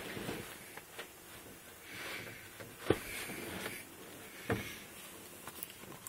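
Faint handling noise: soft rustling broken by a few sharp clicks or knocks, the two loudest about three and four and a half seconds in, as a phone and a tin of dip are handled.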